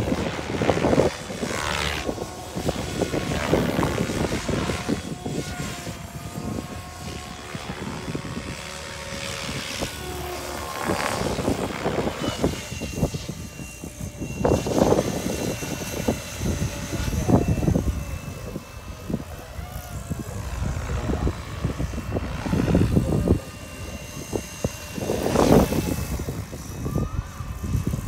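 Electric RC helicopter (SAB Goblin RAW 700, 690 mm carbon fibre main rotor blades, Scorpion brushless motor) flying aerobatics. Its rotor blades whoosh and a steady whine holds underneath, and the sound swells and fades several times as it manoeuvres.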